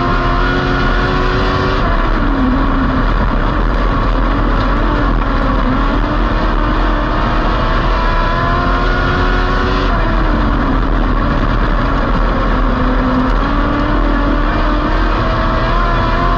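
Dwarf race car's four-cylinder motorcycle engine running hard on a dirt oval, heard from inside the cockpit with wind and tyre noise. The engine note drops about two seconds in and again about ten seconds in as the driver lifts for the turns, then climbs steadily as he gets back on the throttle.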